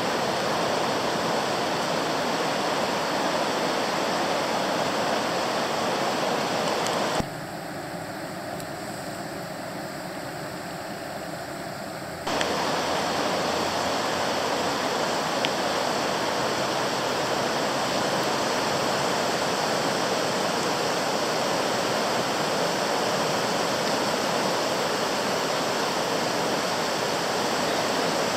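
South Fork Eel River in flood, raging: a steady, loud rush of fast high water. About seven seconds in the sound drops sharply quieter for about five seconds, then comes back just as suddenly.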